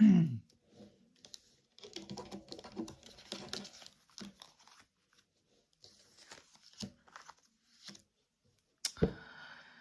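A deck of tarot cards being shuffled and handled: papery rustling and light clicks of cards sliding together, with one sharper tap near the end.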